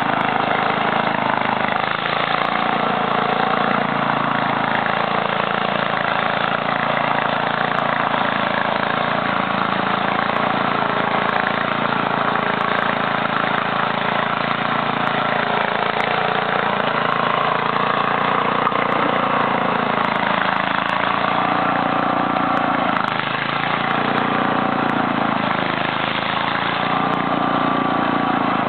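Small garden tractor engine running steadily under heavy load, its pitch dipping and recovering several times in the last third.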